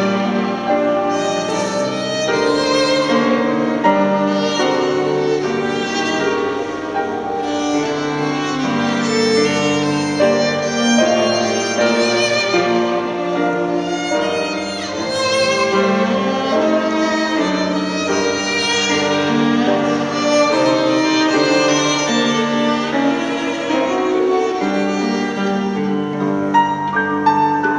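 A violin playing a slow classical melody of long held notes over grand piano accompaniment.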